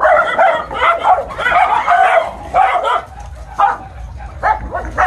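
A dog barking rapidly over and over in short high yaps, the barks thinning out after about two and a half seconds.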